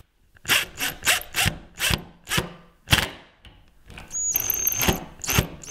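Cordless drill/driver driving a screw through a plastic furniture glide into a Douglas fir table leg, the screw squealing in the wood. The drill runs in short bursts about two a second, then from about four seconds in in longer runs with a high motor whine.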